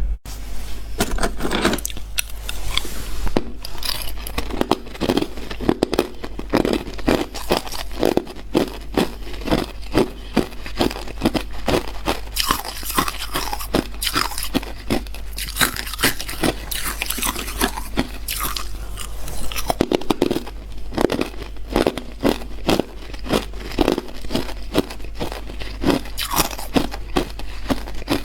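Hard clear ice being bitten and chewed close to the microphone: a rapid, uneven run of loud crunches and cracks, with a steady low hum underneath.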